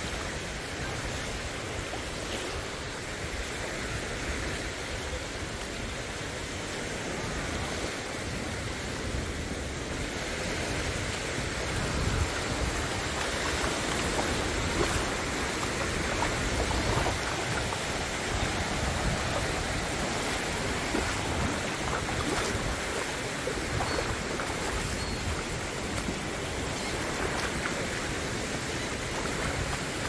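Small, gentle waves of the Gulf of Mexico washing up onto the sand: a steady wash of surf that grows a little louder about twelve seconds in.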